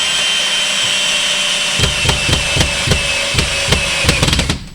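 Power drill running with a steady, slightly falling whine, then pulsing rhythmically at a quickening rate before cutting off near the end.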